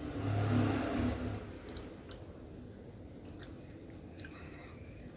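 A person chewing slate pencil with closed mouth, grinding with sharp crisp crunching clicks in scattered clusters, the loudest in the first couple of seconds and more about three to four seconds in.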